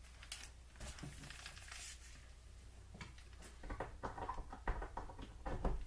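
Faint scattered clicks and rustles of handling, more frequent in the second half, over a low steady hum.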